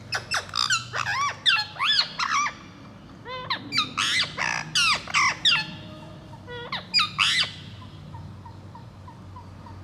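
Pet ringneck parrot squawking, a quick run of loud harsh calls that swoop up and down in pitch, which stops about seven and a half seconds in, leaving only faint, evenly spaced little chirps.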